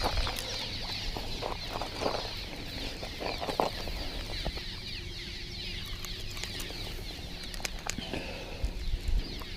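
Continuous chatter of many small birds, a dense mass of short falling chirps, with a few scattered soft knocks.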